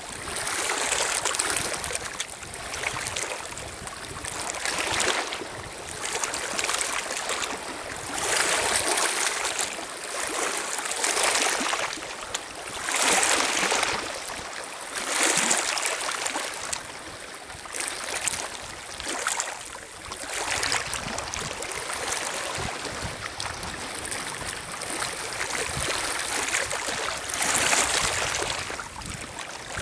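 Small lake waves lapping and washing over a pebble shore, swelling and easing every few seconds.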